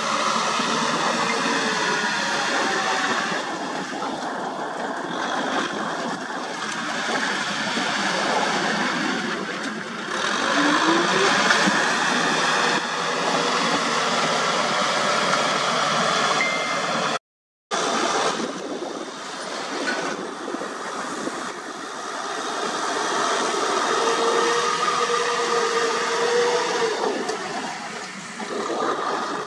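Kubota M6040 SU tractor's diesel engine running under load as its rear rotary tiller churns through wet paddy mud: a steady mechanical noise that swells and eases, cutting out for a moment partway through.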